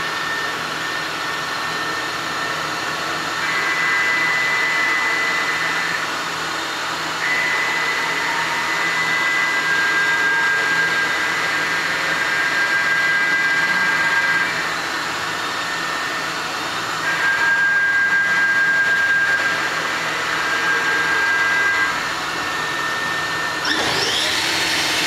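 1998 Haas VF-2 CNC vertical machining center running with its table and spindle head moving: a steady mechanical whine and hum, with high whining tones that switch on and off in steps, getting louder and quieter with them, and a rising whine near the end.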